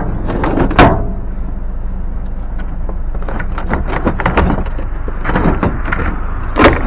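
Knocks and clatter of scrap items being shifted and set down on a pickup truck, with a loud knock about a second in, a run of lighter rattling in the middle, and another sharp knock near the end, over a steady low hum.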